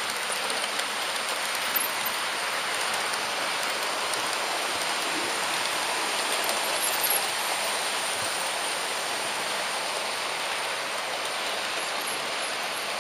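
H0 gauge model train running along the track, heard from a camera riding on its front: a steady rushing noise of wheels on rails and running gear.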